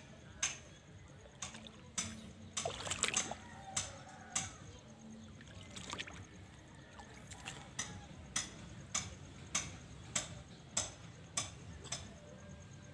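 A run of sharp ticks or clicks over a faint steady low hum. They come unevenly at first, then settle into an even beat of a bit under two a second in the second half.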